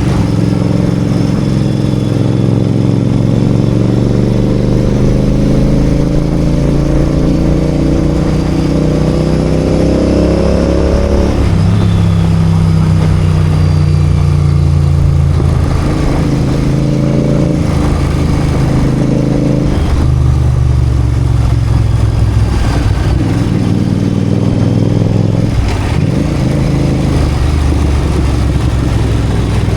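Royal Enfield Continental GT 650's parallel-twin engine and exhaust under way: the revs climb steadily for about ten seconds, then drop sharply at a gear change. After that the engine runs at a lower, steadier pitch, with a few brief changes in note.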